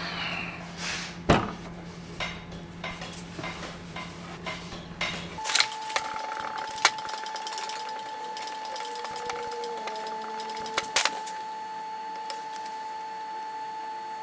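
Scattered light clicks, taps and knocks of small stainless steel parts being handled on a steel workbench, the sharpest tap about a second in. From about five seconds in a faint steady high whine sits underneath.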